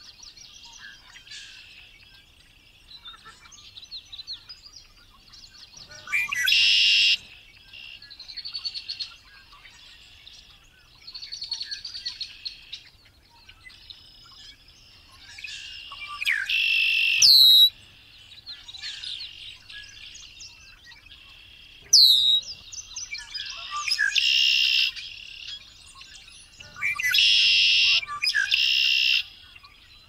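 Male red-winged blackbird singing: loud song phrases about a second long, repeated several times, over steady quieter twittering and chattering from other birds.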